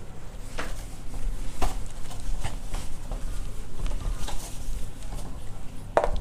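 A cloth wiping marker writing off a whiteboard: irregular rubbing strokes across the board.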